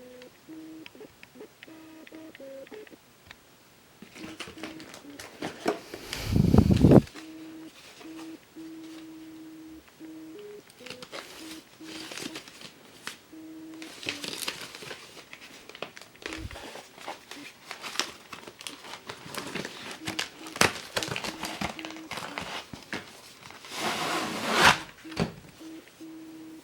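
Packaging being handled: plastic and paper crinkling and rustling, with scattered clicks and knocks and a louder burst of handling about six seconds in and again near the end. A faint tone switches on and off underneath.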